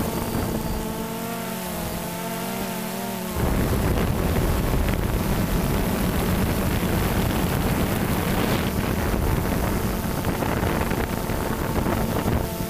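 Quadcopter drone's motors and propellers whining, the pitch wavering as the motors adjust. About three seconds in, wind on the microphone swamps the whine with a loud rumble, and the whine comes back through near the end.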